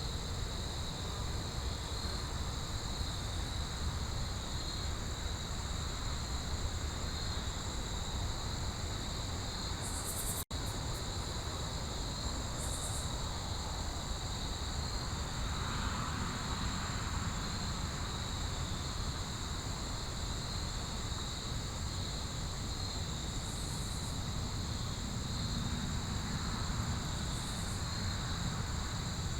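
Steady chorus of crickets trilling at two high, unchanging pitches over a low rumble. The sound drops out for an instant about ten seconds in.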